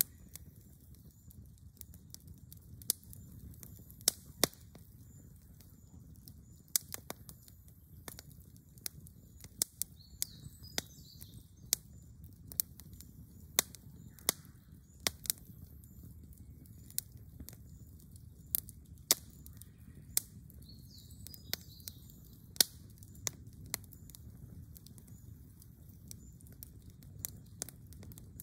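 Charcoal campfire crackling, with sharp irregular pops, several of them loud, over a low steady rumble of the flames.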